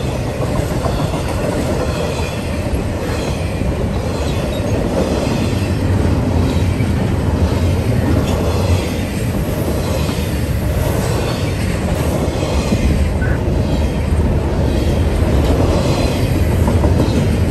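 Intermodal freight train's double-stack container well cars and trailer flatcars rolling past at close range: a steady, continuous noise of steel wheels on the rails.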